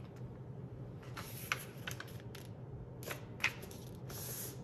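A sheet of A4 paper being folded and creased by hand on a tabletop: rustles and several short, sharp crackles as hands press and slide along the fold.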